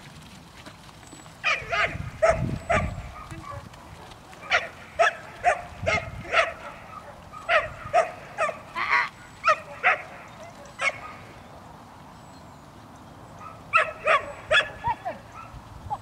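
A dog barking in quick volleys of short, sharp barks, with a few seconds' pause between volleys and a longer lull past the middle.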